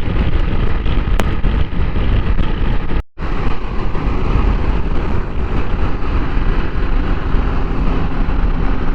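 Heavy wind rush over a helmet-mounted microphone while riding a motorcycle at highway speed, with the bike's engine running underneath. The sound drops out completely for an instant about three seconds in.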